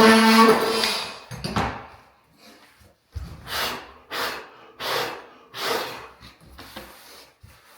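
A brief creaking squeal, then a run of about six short scraping strokes, roughly one every two-thirds of a second, during vinyl plank flooring work.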